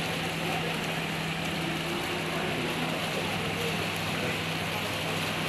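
Steady rushing of wind and water with a constant low hum underneath and faint voices in the background.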